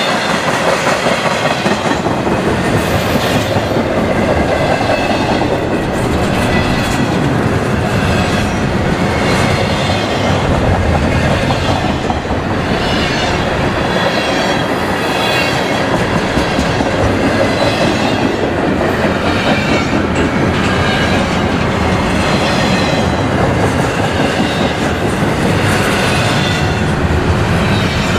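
Double-stack intermodal freight train of container well cars rolling steadily past at close range: a continuous, loud rumble of steel wheels on rail with a running clickety-clack over the rail joints.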